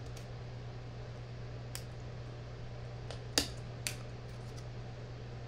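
Trading cards being handled at a desk: three short light clicks and taps over a steady low hum, the loudest a little past halfway.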